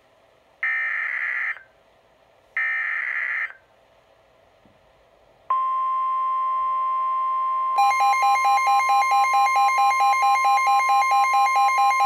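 Two buzzy screeches of SAME digital header data, about a second each, from a NOAA Weather Radio broadcast. About five and a half seconds in, the steady 1050 Hz weather radio warning alarm tone starts. Some two seconds later the Midland WR-120 weather radio's own alert joins it, a fast beeping at about four pulses a second, signalling a new tornado warning.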